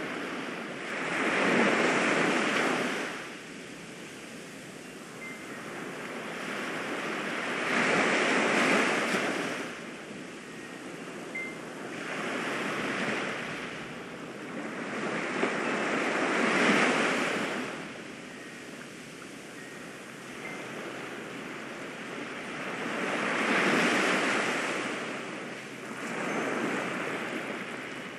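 Ocean waves washing in and drawing back, the surf swelling and fading in about six slow surges.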